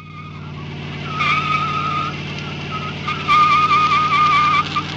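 Chevrolet Camaro doing a burnout: the engine runs hard while the spinning rear tyre squeals. The high squeal starts about a second in, wavers, and drops out briefly midway.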